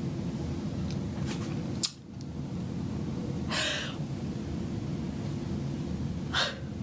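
A person crying: a sharp sniffing inhale about halfway through and another short gasp near the end, over a steady low hum, with a single click about two seconds in.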